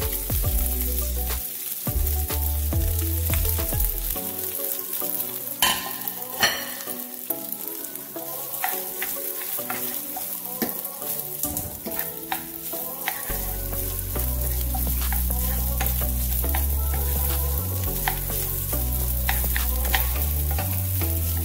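Cooked jasmine rice sizzling in hot oil in a pot while it is stir-fried, with repeated clicks and scrapes of the spoon against the pot, two louder scrapes about six seconds in. Background music with a bass line runs underneath.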